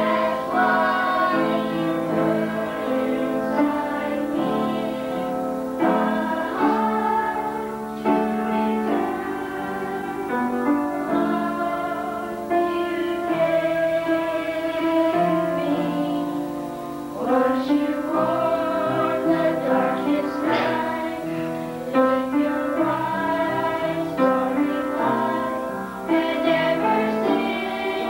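A group of children singing a song together, with instrumental accompaniment.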